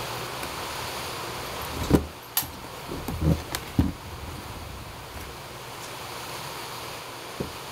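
Small 3D-printed plastic RC car chassis handled and set down on a wooden table: a few light knocks and taps about two to four seconds in, one faint tap near the end, over a steady background hiss.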